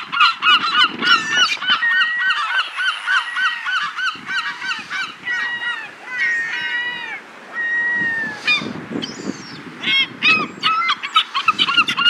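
A flock of gulls calling over one another, many short arched squawks overlapping. The calling is thick at first, thins out about halfway, with one longer drawn-out call, and picks up again near the end.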